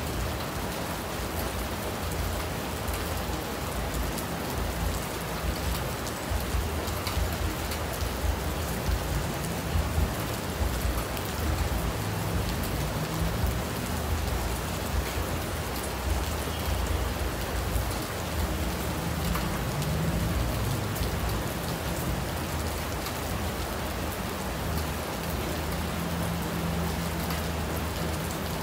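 Steady rain falling: an even hiss with many small drop ticks, and a low rumble underneath.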